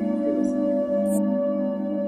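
Ambient background music of steady, sustained droning tones, with a brief high hiss about a second in.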